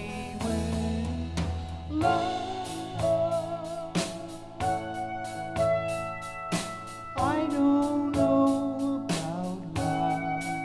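Recorded music playing through Klipsch RP-600M bookshelf speakers and picked up in the room: sustained chords with sharp beats about once a second.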